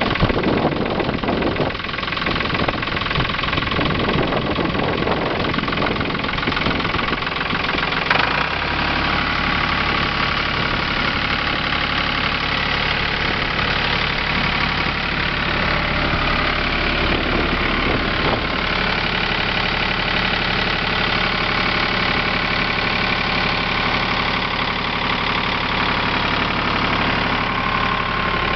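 Ford New Holland 3930 tractor's three-cylinder diesel engine running steadily at idle, with a sharp click about eight seconds in.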